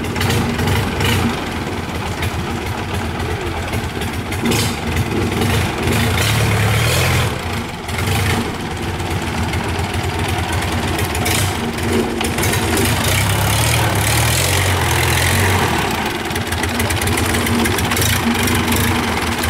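Rusty inboard engine of a canal barge, with a short unmuffled exhaust stub, running steadily as it drives the barge along.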